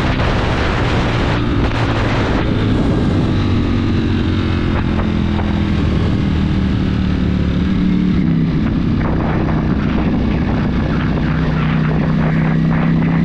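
Superbike engine running under steady load, its note slowly falling for several seconds, shifting about eight seconds in, then slowly climbing again, over a steady rush of noise.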